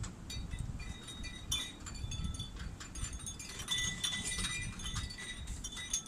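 Light metallic clinking and chiming: many short high ringing notes at a few recurring pitches, with scattered clicks over a steady low rumble.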